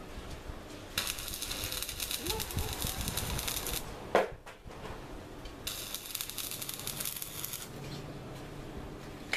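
Electric arc welding: the arc crackles and sizzles in two runs, about three seconds and then about two seconds long, as a steel post is welded. Between the runs there is a single sharp knock.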